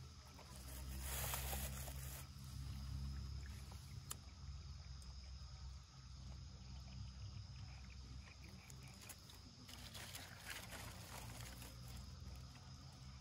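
Dry sticks and grass rustling and crackling as they are handled and stacked into a campfire pile, loudest about a second in and again near the end, over a low steady rumble.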